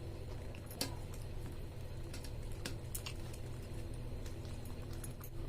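Eating noises: a few sharp clicks and light ticks, the clearest about a second in and again about three seconds in, over a steady low hum.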